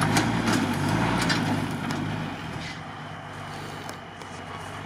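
Mercedes-Benz Unimog's diesel engine running as the truck pulls away over rough ground. The engine sound fades about two seconds in, with scattered sharp clicks and crackles.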